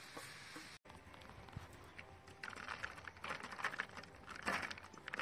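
Cooked noodles dropping in clumps onto a banana leaf, a rapid crackling patter that starts about halfway through and is loudest near the end. Before it, a steady hiss cuts off suddenly about a second in.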